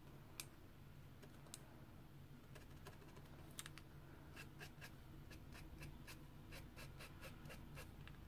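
Faint tapping and scratching of a paint pen's tip on toned paper as short strokes and dots are drawn: a few light ticks at first, coming more often from about halfway.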